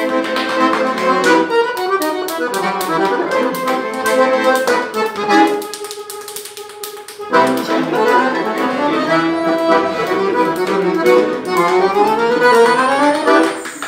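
Piano accordion playing a lively tune in chords and quick runs, with sharp clicks all through it. About halfway through it thins to one held note for a second or two, then the full sound comes back.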